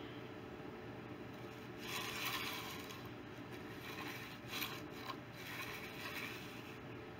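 Faint scraping of a hand tool worked over wet concrete at the edge of a fresh slab, with a louder stretch of scraping about two seconds in and short scrapes again around the middle.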